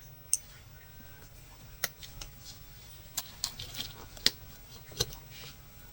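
Latch hook tool knotting yarn into rug canvas: a string of sharp light clicks, about seven at uneven intervals.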